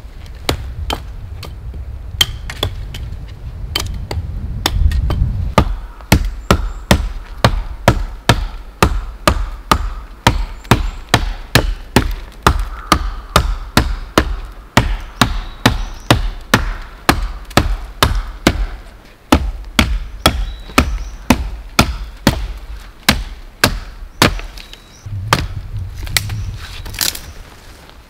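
Wood being chopped with a hand-held blade: sharp, steady strikes about two a second for most of the stretch, stopping shortly before the end.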